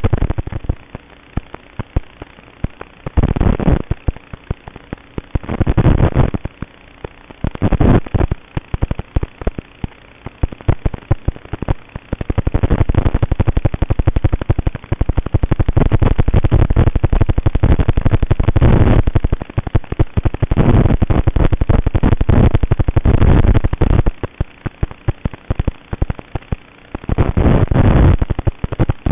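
Motors of a TBS Vendetta FPV racing quadcopter throttled up in repeated bursts, some short and some held for several seconds, with a crackling buzz between them.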